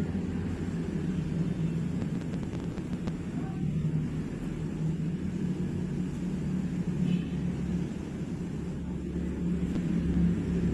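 A steady low rumble, like a running engine or machinery, that holds through without letting up.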